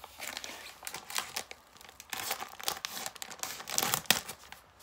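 Clear plastic packaging bag crinkling and tearing as it is pulled open by hand, in irregular rustles that get busier from about halfway through.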